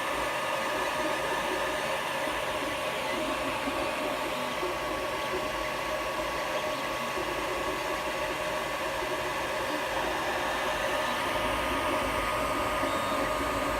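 Creality Ender 3 3D printer running, its cooling fans giving a steady whir with a constant high tone over it.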